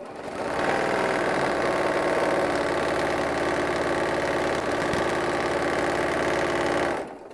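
Sewing machine running fast and steadily while free-motion stippling a quilt. It speeds up at the start and stops shortly before the end.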